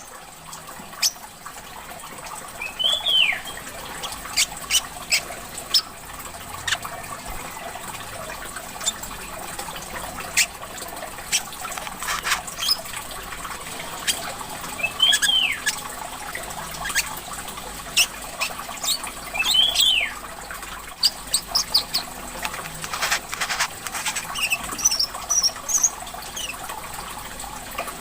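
A small caged songbird giving sharp, clicking chirps and three call notes that rise then fall, over a steady sound of trickling water.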